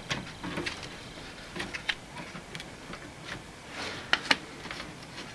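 Pliers clicking and tapping against the pin and clevis of the handbrake cable at a Classic Mini's rear brake backplate as the pin is worked out: a scatter of small ticks, with two sharper clicks about four seconds in.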